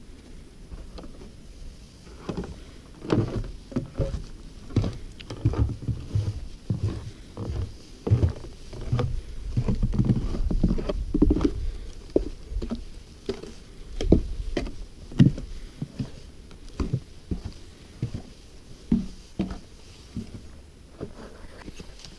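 Footsteps of walkers on a snow-covered wooden boardwalk and snowy ground: irregular dull thuds, one or two a second, loudest through the middle.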